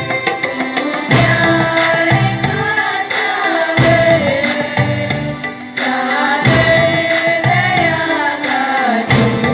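Music: a melody that wavers in pitch over a repeated percussion beat, with jingling percussion like a tambourine.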